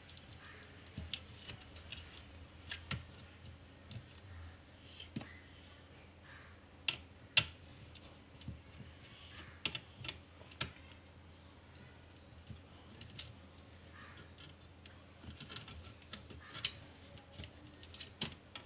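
Scattered small clicks and taps of a screwdriver, screws and parts on the opened chassis of a Dell Inspiron 3558 laptop as the heat sink and motherboard screws are undone, coming irregularly in little clusters, the sharpest click about seven seconds in.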